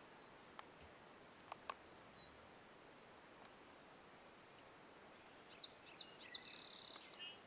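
Near silence of an open field: faint background ambience with a few short, high chirps of small birds about a second in and again near the end, and a few faint clicks.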